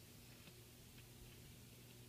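Near silence: room tone with a faint steady electrical hum and a few faint ticks.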